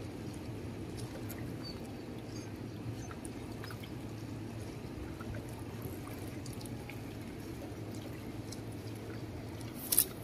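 Small waves lapping and trickling against shoreline rocks, over a low steady hum. A single sharp click near the end.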